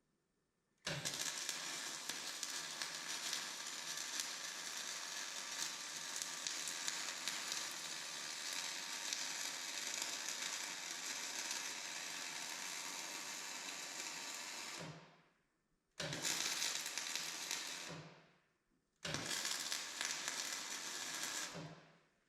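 Electric arc welding on steel: a steady crackling sizzle of the arc as a weld bead is run for about fourteen seconds, then stopped, followed by two shorter bursts of welding of two or three seconds each.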